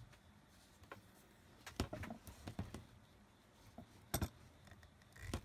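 A stitching chisel in a press punching holes through a leather strap into a poly cutting board: a few sharp knocks and clicks, the loudest a double strike about four seconds in.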